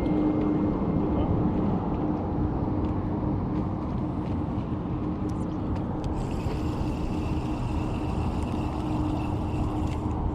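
Boat motor noise on open water: a steady hum with a constant low drone, and a higher whine joining about six seconds in for roughly four seconds before cutting off.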